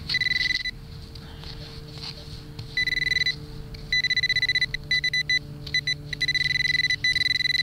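Garrett Pro-Pointer pinpointer sounding its high, rapidly pulsing alert tone in several bursts of about half a second to a second as it is probed around the hole, signalling metal close to its tip. A faint steady hum lies underneath.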